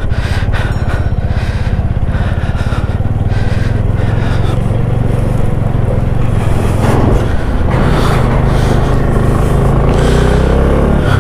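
Motorcycle engine running steadily on the move, with a rushing noise of wind over the microphone.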